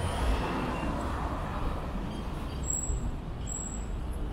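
Street traffic noise, with a motor vehicle passing close by and then fading in the first couple of seconds.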